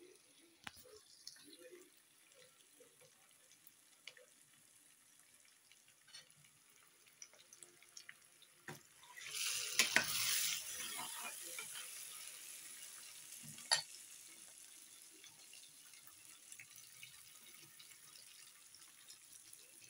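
Thick tomato stew base frying in oil in a stainless steel pan, bubbling with small quiet pops. About nine seconds in, a metal spoon stirs it, clinking against the pan and setting off a loud burst of sizzling that fades away over the next few seconds, with one more clink a little later.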